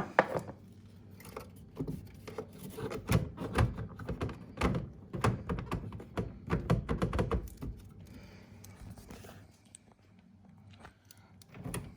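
Clicks and thunks of the tumble dryer's condenser cover and condenser being handled, a quick irregular run of knocks that thins out and goes quiet about eight seconds in.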